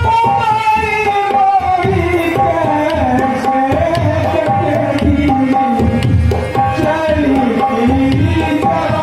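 Harmonium playing a melody in held notes over a steady hand-drum rhythm.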